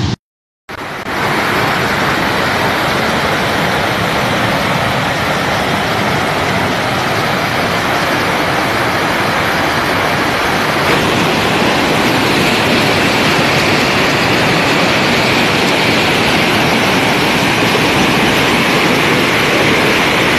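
Cold lahar flood, a torrent of muddy water carrying sand, stones and logs, rushing past in a loud, steady, unbroken noise. The sound drops out for about half a second just after the start.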